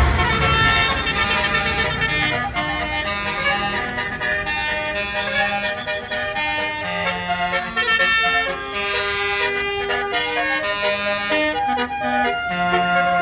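A bus's basuri musical air horn playing a telolet melody of quick stepped notes, over a low engine rumble that fades over the first couple of seconds.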